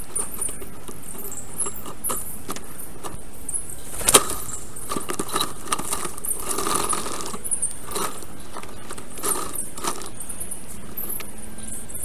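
Sped-up nest-camera audio from a black stork nest: a busy jumble of high, rapid chirps over scattered clicks and rustles of sticks, with one sharp knock about four seconds in.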